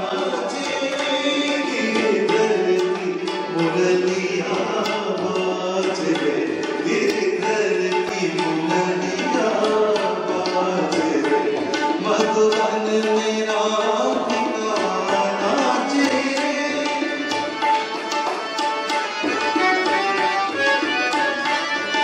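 Live Indian music: tabla strokes keeping a steady rhythm under a harmonium melody.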